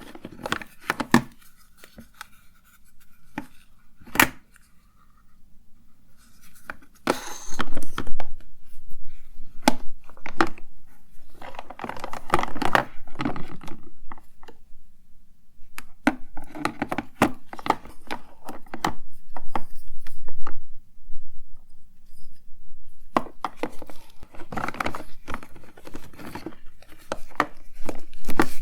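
Close-miked handling of small objects and packaging: sharp clicks and taps in the first few seconds, then several stretches of rustling and clattering, each lasting a few seconds, separated by short pauses.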